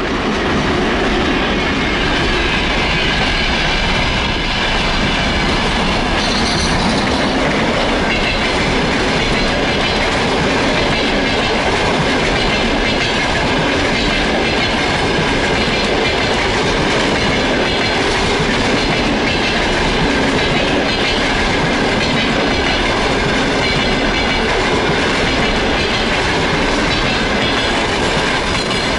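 Passenger train hauled by a ChS2K electric locomotive rolling past close by: a steady, loud noise of wheels running on the rails as the coaches go by.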